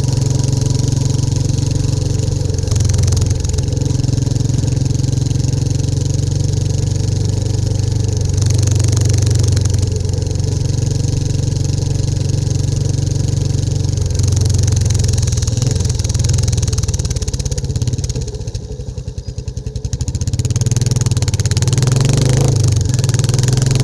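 Royal Enfield Classic 350's single-cylinder engine and exhaust running steadily on the move. About seventeen seconds in the throttle eases off and the engine note drops, then picks back up a few seconds later.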